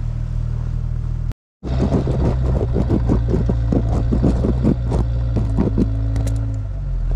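A Jeep engine running with a steady low drone, broken off by a short gap about a second and a half in. Then the Jeep drives up a snowy track on chained tyres, with a quick run of clanks and clicks from the tyre chains over the engine note.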